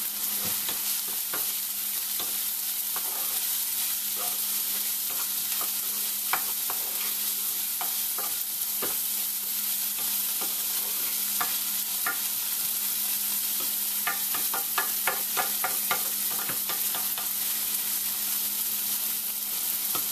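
Finely chopped onions sizzling steadily in vegetable oil in a nonstick pan as they fry toward brown, stirred with a wooden spoon that clicks and scrapes against the pan now and then, with a quicker run of taps about two-thirds of the way through.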